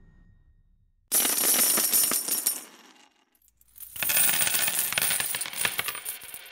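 Bright metallic jingling and clinking in two bursts: the first starts suddenly about a second in and dies away after about two seconds, and the second swells in near the middle and fades slowly.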